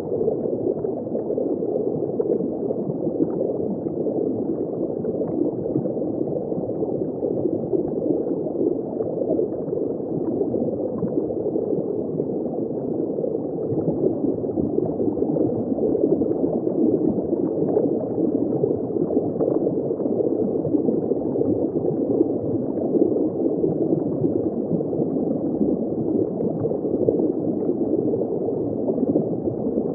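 Underwater ambience heard from a shallow depth: a steady, dense bubbling and gurgling of water, muffled, with no high end.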